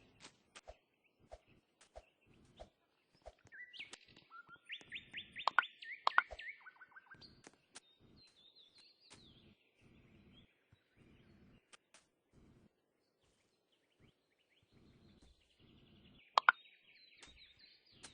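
Small birds chirping in short bursts, loudest a few seconds in and again near the end, over scattered sharp clicks and a run of soft, evenly spaced low knocks.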